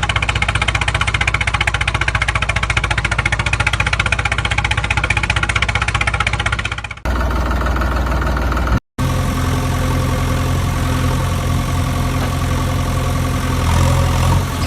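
An engine idling steadily with a fast, even chug. The sound cuts off abruptly twice and resumes each time, with a slightly different, deeper note after the second cut.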